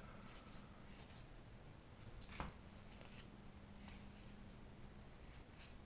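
Faint soft clicks and slides of Magic: The Gathering trading cards being flipped one past another in the hands, the clearest about two and a half seconds in, over a faint low hum.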